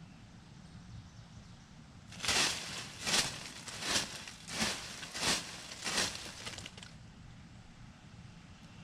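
Footsteps crunching through dry leaf litter: about seven steps spaced a little under a second apart, starting about two seconds in and stopping near the end, over a low steady rumble.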